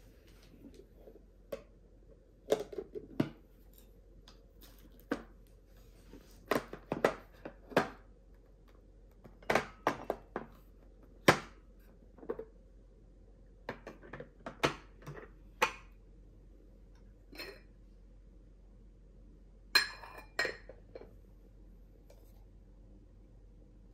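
Lidded lacquer bowls, wooden boxes and ceramic dishes handled on a breakfast tray: a string of scattered light knocks and clinks as lids are lifted and dishes set down, with one ringing china clink a few seconds before the end.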